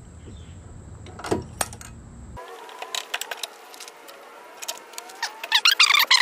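Metal fork parts and small hardware clinking and rattling as they are handled and fitted: a few light clicks, then a dense burst of clinks near the end.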